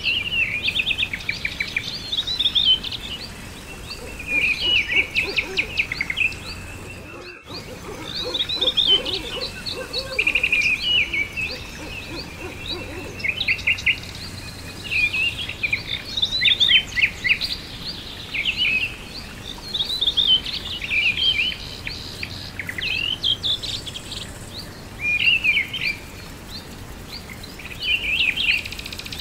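Songbirds singing in short repeated phrases of chirps and trills, a new phrase every second or two, with a lower pulsing call underneath from about eight to thirteen seconds in. The sound cuts out briefly about seven seconds in.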